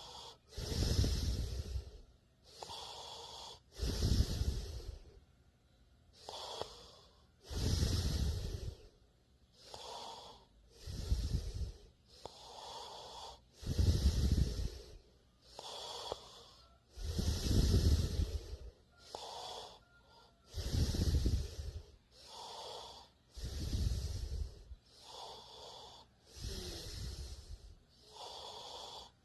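A sleeping person snoring: a loud, deep snore on each breath, alternating with a softer, airy breath, in a steady cycle about every three seconds.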